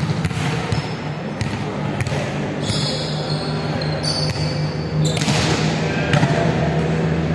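A ball bouncing on a wooden sports-hall floor, a string of irregular thuds, over a steady low hum and players' voices.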